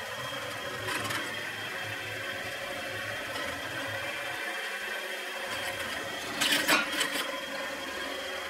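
Electric drill running steadily as its bit cuts thick steel lubricated with oil, with a louder burst of cutting noise about six and a half seconds in.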